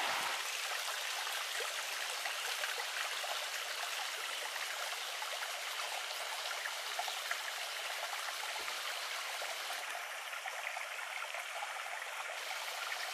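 A small rocky creek running and splashing over stones and a little cascade: a steady, even rush of water.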